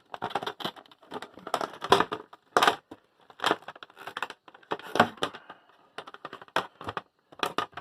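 Smith Corona electric typewriter and its carrying case being handled and set up: irregular clusters of plastic clunks, knocks and rattles.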